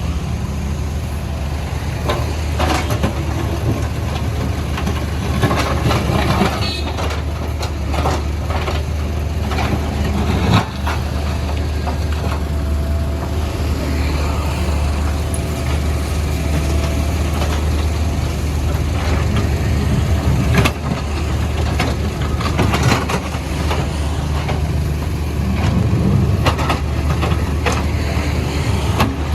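Backhoe loader's diesel engine running steadily under load, with scattered knocks, clatters and scrapes as the bucket breaks up the road surface.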